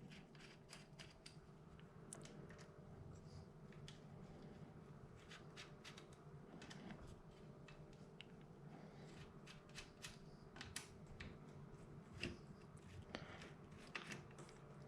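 Faint, scattered small metallic clicks and scrapes of a 2.5 mm Allen wrench turning out the small screws that hold an air rifle's cheek piece, with a few slightly sharper clicks near the end.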